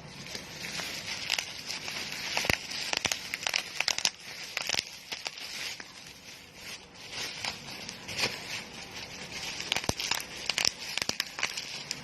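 Packaging crinkling and crackling as it is handled, with many sharp crackles and a few louder snaps. It starts abruptly, loudest in two spells.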